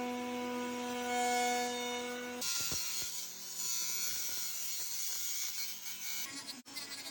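A small electric power tool running: first a steady pitched motor hum, then from about two and a half seconds in a hissy, grinding noise.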